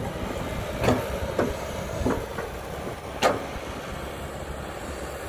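Tracked excavator's diesel engine running steadily at work, with a few sharp knocks from the machine, the loudest about a second in and just past three seconds.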